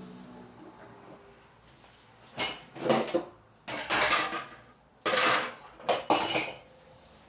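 Dishes and cutlery clattering against each other as they are washed by hand in a sink, in several irregular bursts starting about two seconds in.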